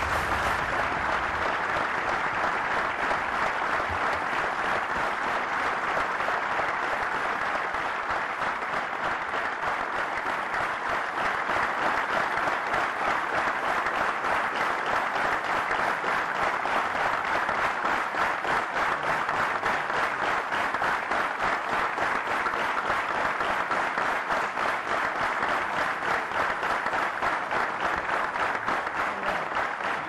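A large audience applauding, a long steady ovation of many hands clapping.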